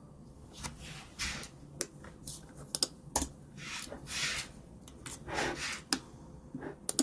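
Scattered clicks and taps of a computer keyboard and mouse being worked, with a few short soft rushes of noise in between.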